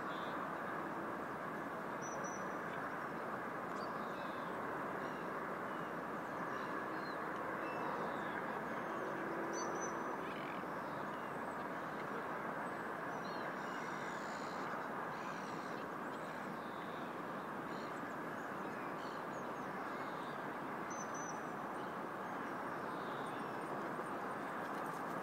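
Steady outdoor background noise, even throughout, with faint, short, high chirps and calls of small birds scattered over it.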